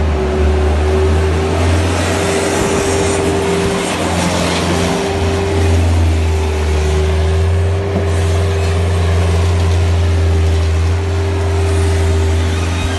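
Bobcat skid-steer loader's engine running steadily, loud and deep, with a steady whine and a hiss over it.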